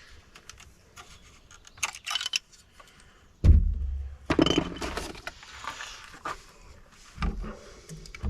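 Handling noise: scattered clicks and rattling of objects being moved, with a loud thump about three and a half seconds in and a smaller one near the end.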